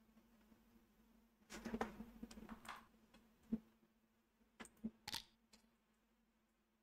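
Near silence with a faint low hum, broken by a few faint clicks and taps: a small cluster about two seconds in, a single sharp tick a little later, and two or three more about five seconds in. They sound like small clicks at a computer desk.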